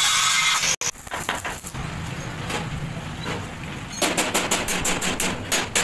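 Angle grinder cutting through a steel rectangular tube, a loud steady whine that stops abruptly under a second in. After it comes a run of sharp clicks and knocks, thickest in the last two seconds.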